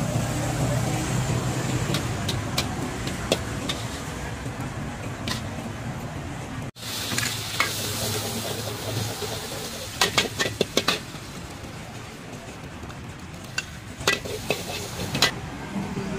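Food frying in a wok over a gas burner: a steady sizzle of oil, with a metal spatula scraping and clanking against the steel wok, several sharp clanks about ten seconds in and again near the end.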